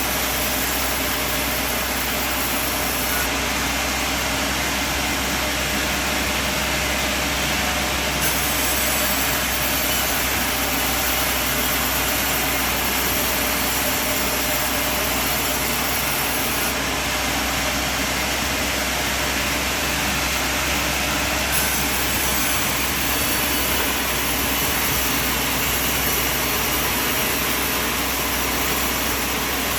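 Sawmill machine running with a steady, unbroken mechanical noise.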